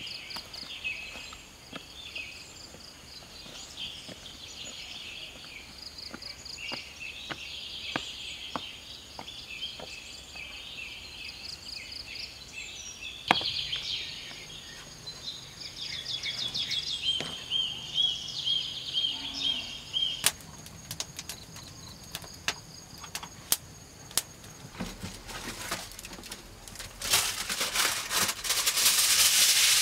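Wild birds chirping and singing, with scattered footsteps and a single sharp knock about 13 seconds in. Near the end a loud, dense rasping noise takes over.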